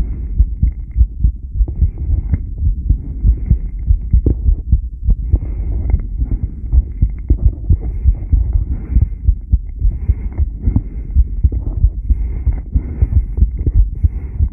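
Heartbeat recorded at the chest: low thuds repeating steadily, a few a second, with a faint hiss above them.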